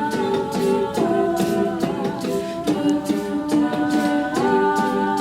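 A cappella group singing wordless sustained backing chords, shifting to a new chord about every second and a half, while a vocal percussionist keeps a steady beat underneath.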